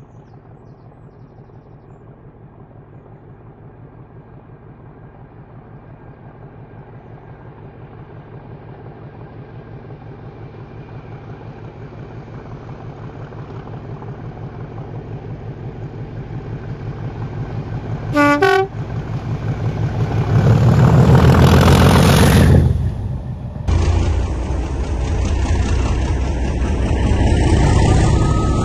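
Diesel locomotive approaching with its engine's pulsing beat growing steadily louder, a short horn blast about two-thirds of the way in, then loud as it passes close. After a cut, an English Electric Class 40 diesel locomotive's engine working steadily, with a rising whistle near the end.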